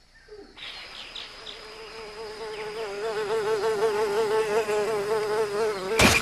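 Cartoon sound effect of a buzzing fly: a steady, quickly wavering buzz that starts about half a second in and grows gradually louder. It ends near the end in a short sharp snap as the frog's tongue catches it.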